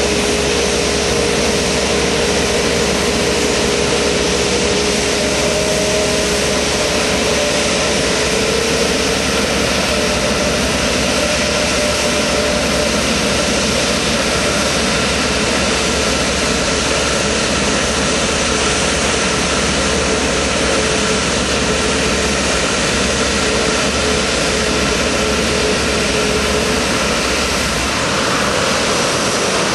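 Airbus A380's four turbofan engines running at taxi power as the airliner taxis past: a loud, steady jet noise, with a whine that fades out about a third of the way through.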